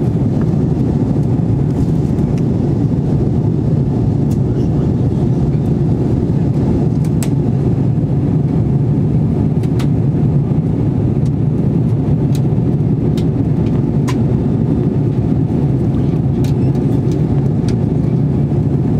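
Steady roar of an Airbus A320-family airliner's engines and airflow heard inside the passenger cabin, with a few faint clicks now and then.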